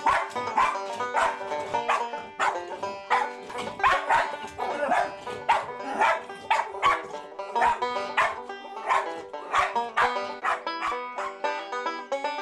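A West Highland White Terrier barking repeatedly at the TV, about two barks a second, over banjo music; the barking stops near the end while the music carries on.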